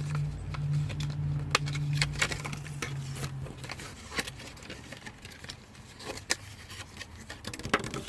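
Clicks and rustling from handling and unpacking a new turn-signal flasher relay, with a few sharper clicks. A steady low hum runs under it and stops about three and a half seconds in.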